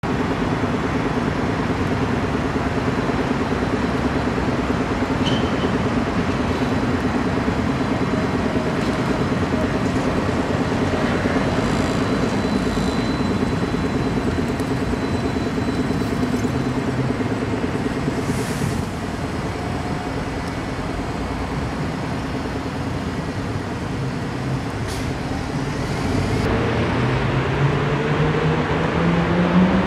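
Stadler Variobahn (GTV6) tram running slowly round a curve of track: a steady low rumble with motor hum that drops off after about 18 seconds. Near the end a rising drone sets in as a vehicle pulls away and speeds up.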